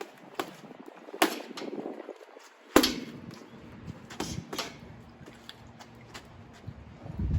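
Boxing gloves punching a heavy bag: a series of irregular thuds, with the hardest blow about three seconds in.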